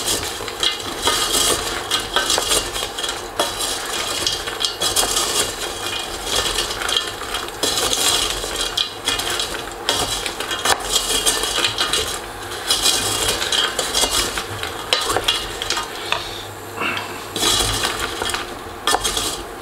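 Wooden spoon stirring hazelnuts and almonds in a stainless steel saucepan: a steady scraping rattle of nuts crusted in crystallized sugar against the pan, with many small clicks. It is the stage where the sugar has seized into a sandy coating and is being stirred until it melts back into caramel.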